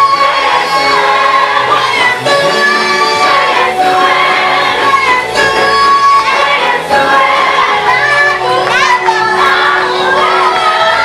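A choir sings a gospel praise song in harmony, loud and continuous, with held notes.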